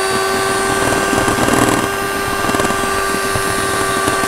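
Electric hand mixer running at a steady speed, its wire beaters whisking a thick egg-and-sugar batter, a constant motor whine with churning from the beaters in the batter.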